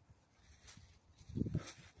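Faint footsteps on sandy ground with rustling from handling the phone, and a few soft thumps about a second and a half in.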